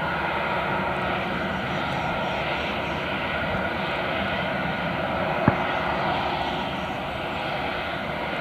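Airbus A320's IAE V2500 turbofan engines running at low taxi power: a steady rush with faint high steady tones. A single sharp click about five and a half seconds in.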